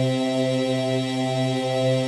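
Droning music: a steady chord of held tones that does not change, with the low note pulsing gently.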